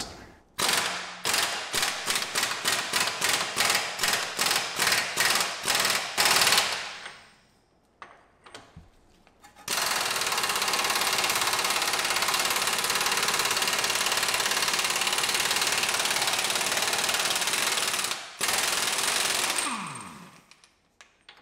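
Impact wrench with a 32 mm socket driving off a front axle nut. First it fires in short repeated bursts, about three or four a second. Then, from about ten seconds in, it runs continuously while the nut spins off a dirty, corroded axle thread, and it winds down with a falling whine near the end.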